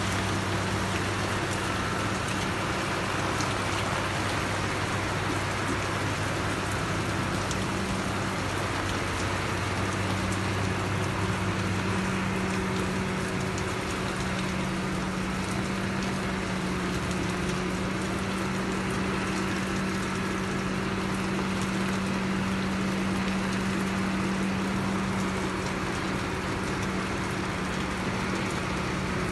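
Heavy rain falling steadily, with an engine droning low underneath; the engine's lower tone drops out about twelve seconds in while a higher hum carries on.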